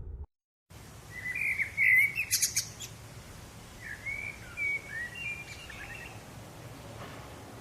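Small bird chirping in two runs of quick, warbling notes, the first about a second in and the second around four seconds in, with a few sharp clicks in the middle of the first run, over a steady low background rush.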